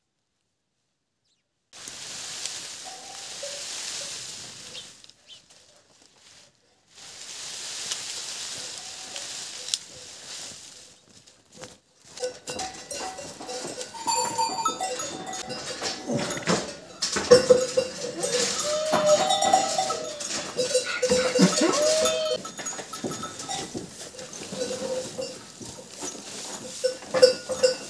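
Footsteps crunching on packed snow, then dry hay rustling as it is tipped from a wicker basket into a manger, with farm animals calling in wavering cries.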